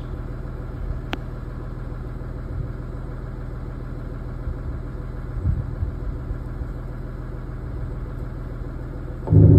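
Audi SQ5 BiTDi's twin-turbo V6 diesel idling steadily through its exhaust in economy mode, with the active exhaust sound speakers off. Near the end the sound jumps suddenly much louder into a deep, steady hum as the active exhaust speakers cut in.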